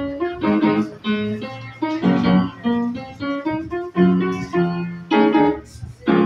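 Upright acoustic piano played by hand: a run of chords and melody notes, each struck and left to ring and fade, with a brief gap before a last chord near the end.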